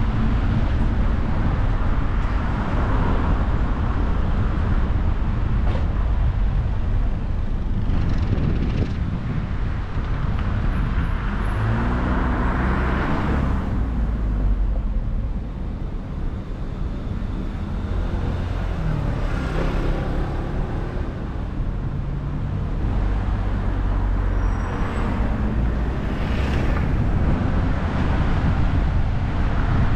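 Car driving along a road: a steady rumble of engine, tyres and wind. A pitched engine tone rises and fades twice around the middle.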